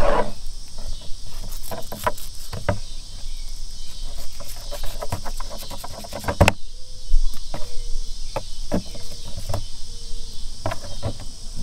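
Knife clicks, taps and scrapes while cutting meat off a catfish carcass, irregular, with one sharp knock about halfway through, over steady insect chirring typical of crickets.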